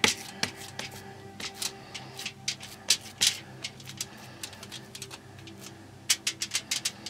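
Hands patting and pressing a raw ground-meat loaf on an aluminium-foil-lined pan: a string of short slaps and foil crinkles, with a quick run of them near the end, over faint background music.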